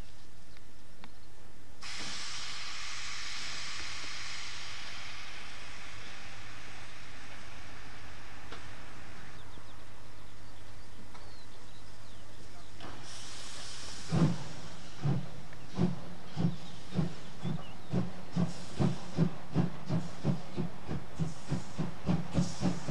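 Steam locomotive hissing loudly as steam blows off for several seconds, then starting away. Its exhaust beats begin about two-thirds of the way through, slow at first and steadily quickening to about three a second.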